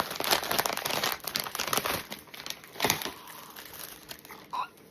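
Blind box packaging being opened by hand, its wrapper crinkling and tearing. The crackling is dense for about two seconds, has one louder crackle about three seconds in, then thins out.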